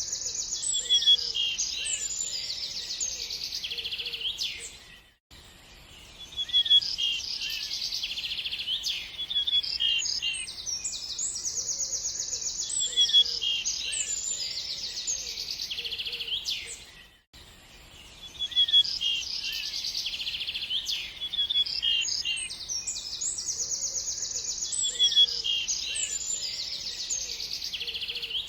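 Small songbirds chirping and trilling densely in high, quick notes. The recording drops out briefly about every twelve seconds, where the same stretch of song starts over.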